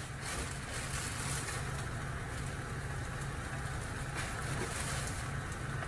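Ham frying in a pan on the stove, sizzling over a steady low hum, while a plastic bread bag rustles as slices are taken out.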